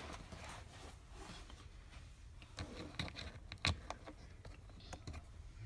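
A few scattered small clicks and taps as screws are being refitted to a car's interior door handle assembly.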